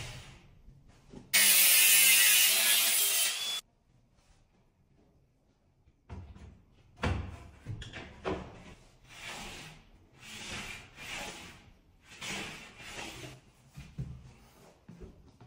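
A cordless drill runs steadily for about two seconds. Then come a string of short scraping, rubbing strokes, roughly one a second, with a couple of dull knocks.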